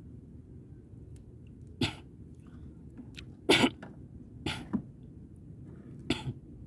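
A man coughing in four short bouts a second or two apart, some as quick double coughs.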